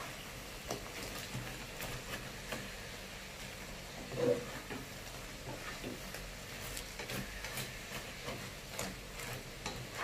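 Food sizzling as it fries in a pan, with scattered light clicks of stirring. There is one brief louder sound about four seconds in.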